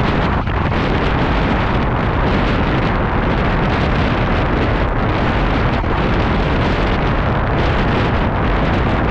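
Strong wind rushing over the microphone of a camera mounted on a road bike riding at about 47 km/h, a loud steady rumble that does not let up.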